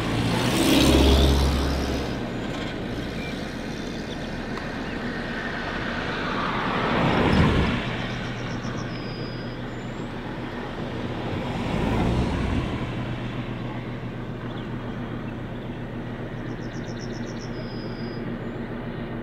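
SU42 diesel locomotive approaching slowly with its engine running in a steady low hum. Two road vehicles pass close by, swelling and fading about seven and twelve seconds in, and a bird trills briefly twice.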